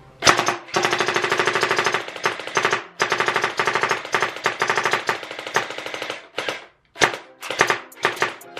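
CosmoX electric gel blaster firing fully automatic at a fast rate as its magazine is emptied. It fires two long bursts of rapid shots, with a brief pause near the middle, then several short bursts near the end.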